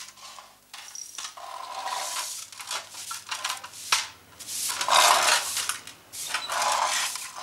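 Broom bristles sweeping across a tiled floor in a series of scratchy swishing strokes, each lasting about half a second to a second.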